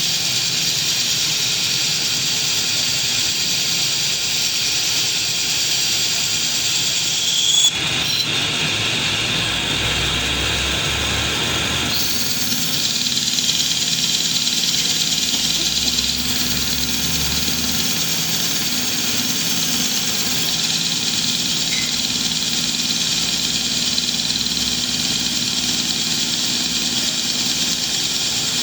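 Metal-turning lathe running steadily, with an even machine hiss and hum. The sound changes briefly about eight seconds in and shifts again a few seconds later.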